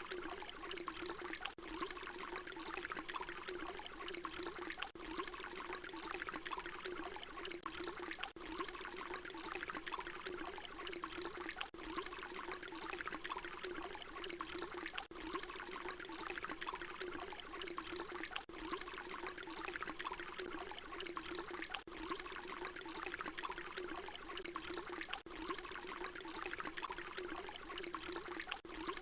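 Water pouring in a steady stream, with a hollow ringing note under the splash. It is a short recording repeated about every three and a half seconds, with a brief dip in level at each join.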